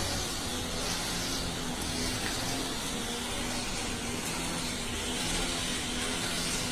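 String trimmer's small two-stroke engine idling steadily with a constant hiss.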